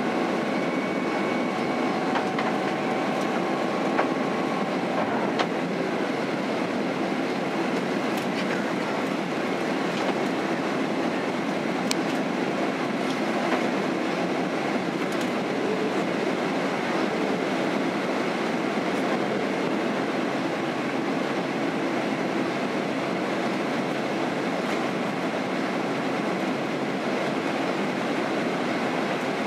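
Cabin noise inside a Boeing 767-300 airliner on approach with its flaps extended: a steady roar of airflow and engines, heard from a seat over the wing. A faint whine fades out in the first few seconds, and there are a couple of light clicks.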